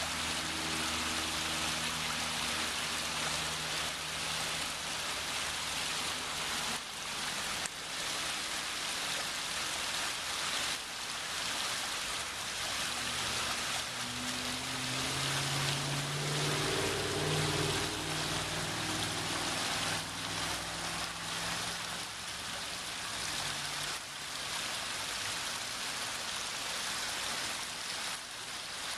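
Six-tier garden waterfall and stream: water splashing and running steadily over the tiers.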